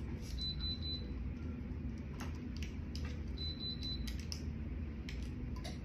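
Hands pressing and rubbing a paper sublimation wrap against a tumbler, giving scattered light taps and crinkles over a low steady hum. A faint high electronic beep, a quick string of pulses, repeats about every three seconds, typical of the tumbler heat press signalling.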